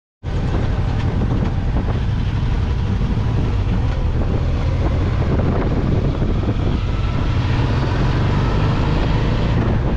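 Motorcycle riding at road speed: steady wind rushing over the microphone mixed with the engine's low running and road noise. It cuts in abruptly just after the start.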